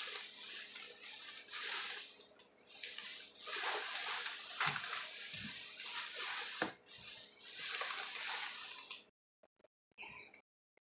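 Close-up eating sounds: wet, crackly chewing and mouth noises that stop abruptly about nine seconds in, followed by a few short smacks.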